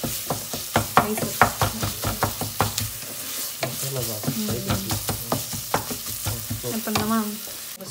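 Wooden spatula stirring and scraping onions and ginger-garlic paste frying in oil in an aluminium pressure cooker, with many quick knocks against the pot over a steady sizzle. The paste is being fried until its raw smell cooks off, before the spice powders go in.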